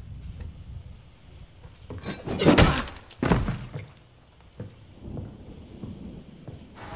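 Film sound effects of a body slumping to a floor strewn with broken glass: two loud crashes with shattering and crunching glass, about two and three seconds in, over a low rumble.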